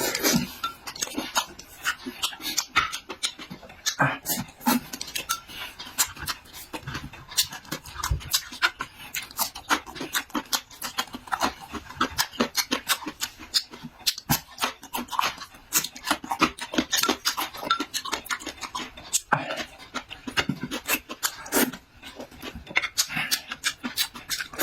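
Close-miked eating: wet chewing, lip-smacking and mouth clicks, coming in a quick irregular run.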